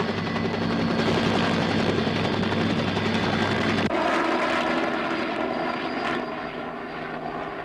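Helicopter flying, its engine and rotor running steadily. The sound changes abruptly about four seconds in and then slowly fades.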